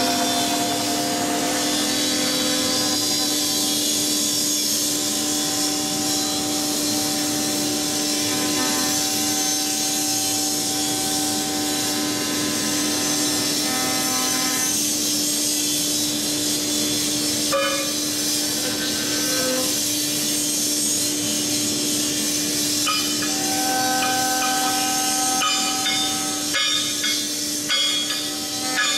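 The spindle of a five-axis CNC router, an HSD HS652 head, milling a wooden impeller. It gives a steady whine over the hiss of the cutter in the wood. Fainter tones come and go, and there are a few knocks near the end.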